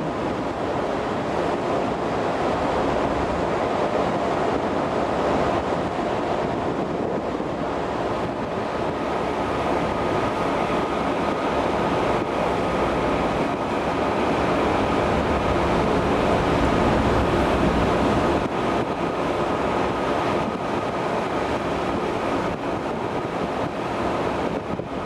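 Wind blowing across the microphone on a moving ferry's open deck over the steady rush of sea water, with a faint, steady high-pitched whine throughout.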